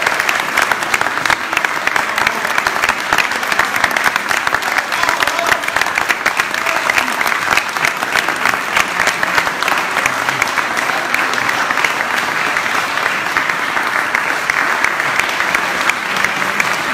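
An audience applauding: dense, even hand-clapping that holds steady without letting up.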